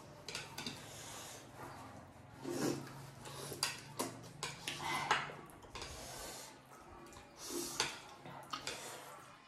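Two people eating spicy Korean instant noodles: wet slurps and chewing, with sniffs and hard breaths, and a few light clicks of chopsticks against plates.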